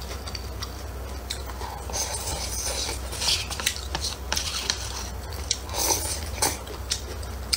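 Close-miked eating: wet slurps of noodles and spicy broth from a paper cup, with chewing and small sharp clicks. The slurps are loudest around the middle and again about six seconds in.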